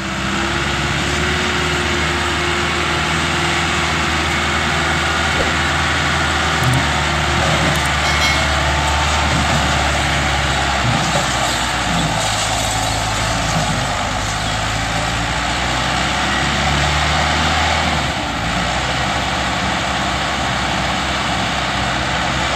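Massey Ferguson 385 tractor's diesel engine working hard under heavy load, dragging a sand-laden trolley through mud, with an excavator's engine running alongside. The engine note shifts about halfway through and again near the end.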